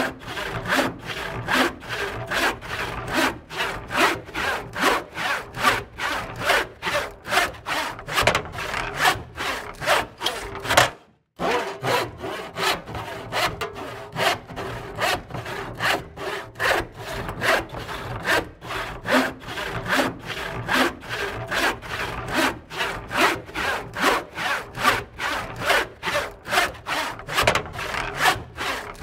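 Hand saw cutting through wood in steady back-and-forth strokes, about two to three a second, with a brief pause about a third of the way through.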